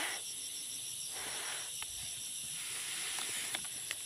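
A woman shushing a small child: several soft 'shh' hisses in a row, over a steady high drone of insects.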